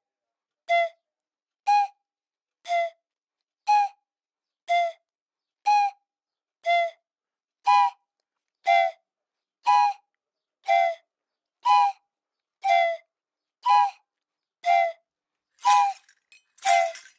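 Mapuche pifilka, a wooden whistle, blown in short, evenly spaced blasts about once a second, alternating between a lower and a higher note. Near the end, a jingle of small bells joins in.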